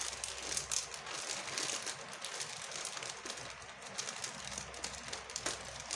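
Plastic courier mailer bag crinkling and crackling as a hand presses and handles it.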